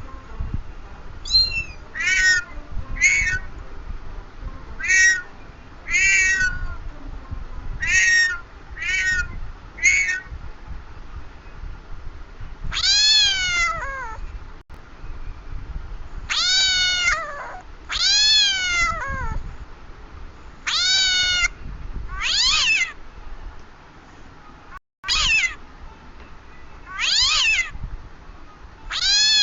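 A cat meowing over and over. It gives short, high meows at first, then from about halfway through longer, drawn-out meows that rise and fall in pitch, one every second or two, over a low rumble.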